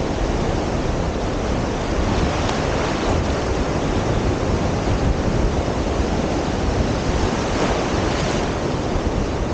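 Ocean surf breaking and washing through shallow water, a steady rushing wash, with wind buffeting the microphone.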